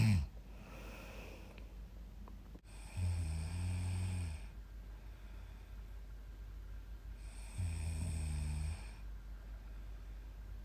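A young woman snoring in her sleep: a short, loud snort right at the start, then two low snores of about a second and a half each, some four seconds apart.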